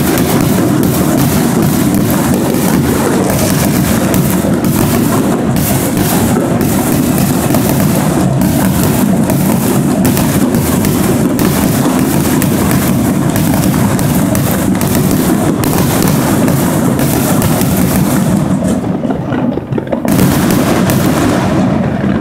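Fireworks going off in a dense, continuous barrage of rapid bangs and crackles, with a brief lull near the end before one last flurry.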